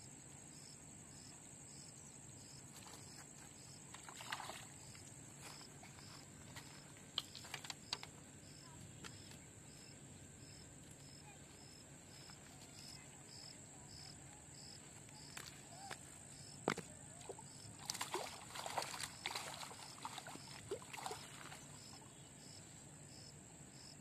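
Insects keeping up a steady high-pitched drone with a regular pulsing chirp about twice a second. Scattered close clicks and rustles come around a few seconds in and again in a cluster past the middle.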